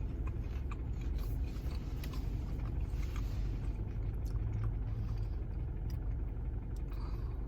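Steady low rumble of a car idling with its air conditioning on, heard from inside the cabin, with small crunches and clicks of someone biting and chewing a fried chicken nugget.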